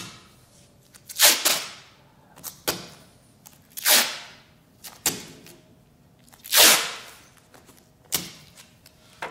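Adhesive tape being pulled off a roll and torn into strips: three longer rips with shorter, sharper tearing sounds between them.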